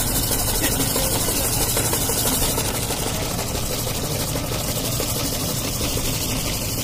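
Ice-shaving machine running, its blade grinding a block of ice into fine shavings. A steady, rough grinding rattle.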